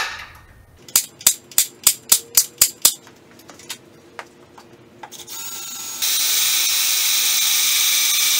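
A sharp knock, then a quick run of about eight clicks, a little under four a second. About five seconds in, a power drill spins up and then runs steadily and loudly as its bit bores into the sheet-steel front frame of a Jeep.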